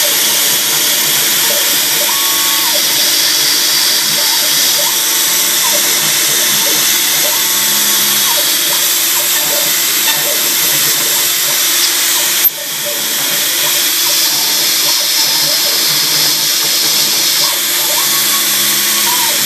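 CNC machine contour-cutting Mic6 cast aluminium tooling plate: a loud, steady hiss of the spindle and cut, with a faint higher tone coming and going. A short click about twelve seconds in.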